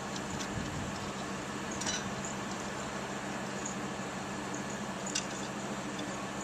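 Steady background hum and hiss, with two small clicks about two seconds and five seconds in.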